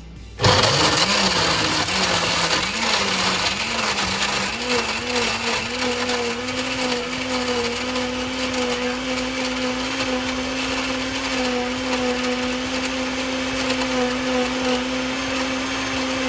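Countertop blender motor starting abruptly and running while crushing ice and strawberries into a frozen drink. Its pitch wavers and climbs over the first few seconds as the ice breaks down, then holds steady.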